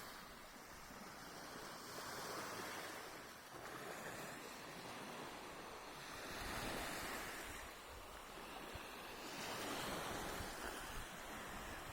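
Sea waves washing onto the shore, the surf swelling and ebbing every few seconds.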